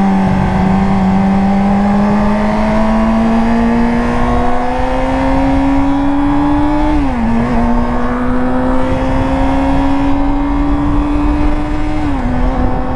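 Yamaha R6's inline-four engine pulling under light acceleration, its pitch climbing slowly. It drops sharply with an upshift about halfway through and again near the end.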